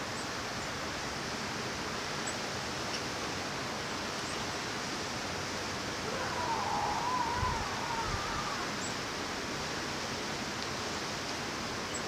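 Steady wind hiss in a snowstorm. Around the middle it is joined by a faint wavering whine and a couple of low buffets.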